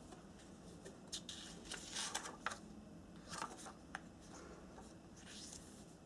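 A small sheet of origami paper being handled and turned over on a tabletop: soft, short rustles and light paper taps in a few clusters, the loudest about two seconds in.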